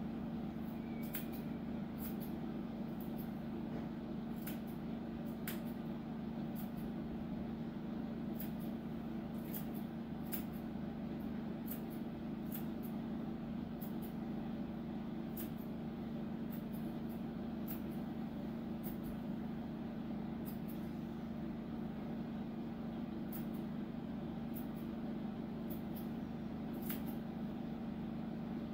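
Steel grooming shears snipping through a dog's foot hair in short, irregular metallic clicks, about one or two a second. Under them runs a steady low hum from a machine in the room.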